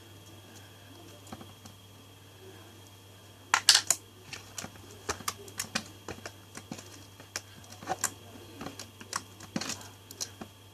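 Purple slime being worked by hand or stirred, giving irregular sticky clicks and pops, with a louder burst of them about three and a half seconds in.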